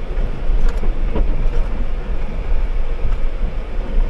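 Steady rumble of a moving vehicle heard from inside the cabin: engine and road noise, with a few light knocks or rattles.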